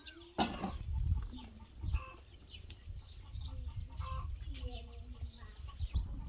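Domestic hens clucking on and off, with small birds chirping and a low uneven rumble underneath.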